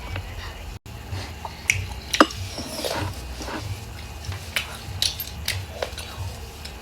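Close-up eating sounds: wet chewing and mouth noises, with scattered sharp clicks of a utensil against a dish.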